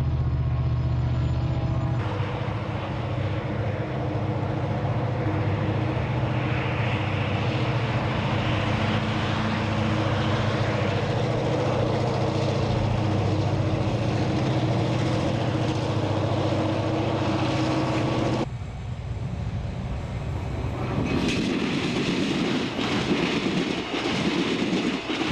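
EMD diesel-electric locomotives working under load: a six-axle unit, then a pair of four-axle road-switchers hauling a freight, each a steady engine drone. From about 21 s a stainless-steel passenger train rushes past at speed, its wheels clicking over the rail joints.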